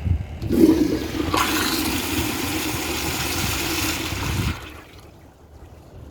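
Kohler Highline toilet flushing on a flushometer valve: a rush of water starts about half a second in, runs steadily for about four seconds, then cuts off sharply as the valve closes.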